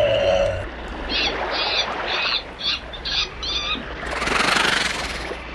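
A string of about seven short, high chirping calls, evenly spaced, then a rushing hiss about four seconds in, like an added animal-call sound effect.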